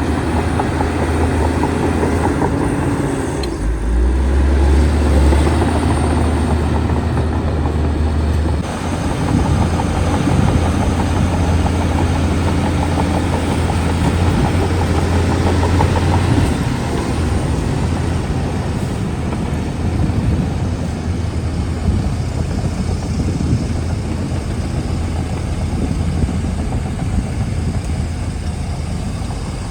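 Heavy diesel engine of a Shantui DH17C2 bulldozer running steadily under load, with the engine note shifting a couple of times, around the 4 s mark and again around the 9 s mark, over a continuous clattering noise.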